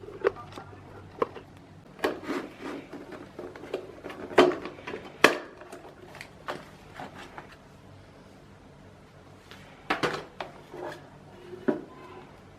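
Scattered clicks, knocks and light clatter of plastic and metal parts and tools being handled while a coffee machine is taken apart, coming in small clusters with quieter gaps between.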